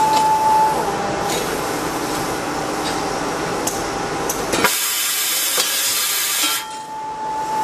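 Automatic spring machine running, with a steady whine at the start and again near the end and a few sharp metallic clicks. About two-thirds of the way through, a hiss lasting about two seconds takes over.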